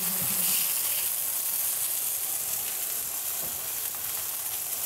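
Thick bone-in ribeye searing in a hot cast iron skillet, sizzling steadily as its fat renders in the pan.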